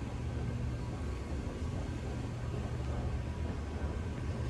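Steady low hum and rumble of an underground subway station platform with no train in, which the listener takes for the escalators rumbling.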